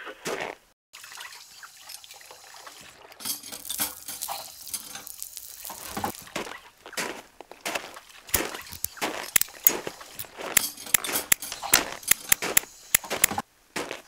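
Footsteps crunching in sand: a soft hiss at first, then from about halfway a quick, uneven run of sharp gritty crunches.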